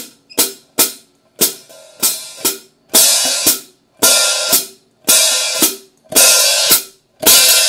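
Paiste 2002 Sound Edge 14-inch hi-hats played on a drum kit, struck about twice a second; from about three seconds in, strokes open into a bright half-second wash that cuts off sharply as the hats close.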